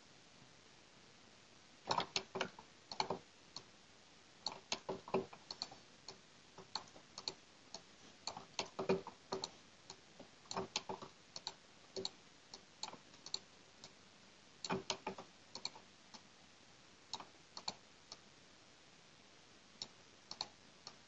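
Computer mouse button clicks, sharp and irregular, often in quick clusters with short pauses, starting about two seconds in.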